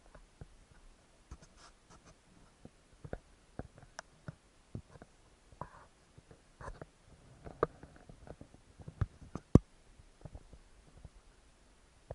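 Irregular dry snaps and clicks with faint rustling, as of twigs and leafy undergrowth being broken and brushed through; the loudest snaps come a little past halfway and about two-thirds of the way in.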